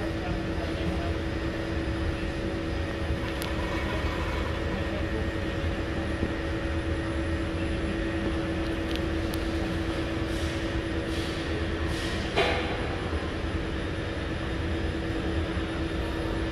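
Steady hum and running noise of an SMRT C151 metro train standing at a platform with its doors open. A single sharp knock comes about twelve seconds in.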